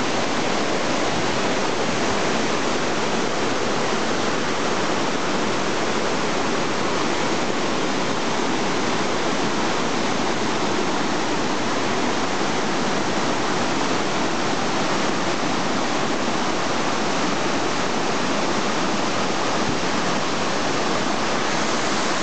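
Waterfall and cascading stream: a steady, even rush of falling water.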